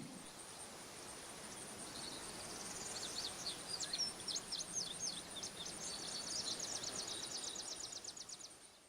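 Faint songbird singing: scattered high chirps that turn into a fast, even trill near the end, over a faint steady high tone.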